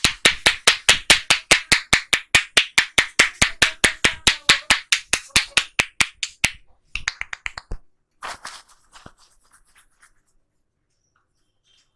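Head-massage tapping: the barber's hands strike the client's head in quick sharp claps, about three a second, then break off into a few last scattered taps around seven to eight seconds in.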